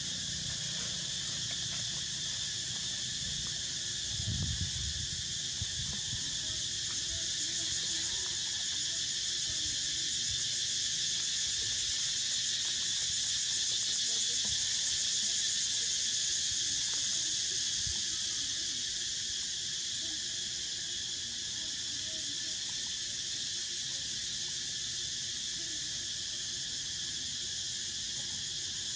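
A steady chorus of insects, a high shrill drone that swells in the middle and eases off again, with a brief low rumble about four seconds in.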